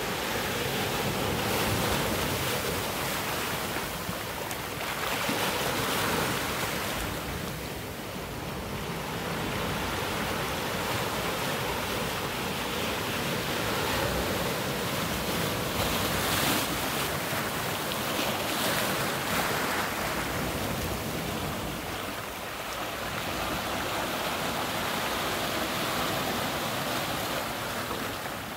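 Ocean surf breaking and washing over volcanic rocks at the shoreline, a continuous rush that swells and eases every few seconds as each wave comes in.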